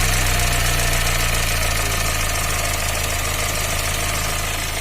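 Warm Fiat Uno Evo Fire 1.4 engine dropping back to idle after a rev, its note easing down slightly and then running steadily. The mechanic is chasing a faint tick from this engine at idle, which he traces to excess clearance in the cylinder head's tappet bores.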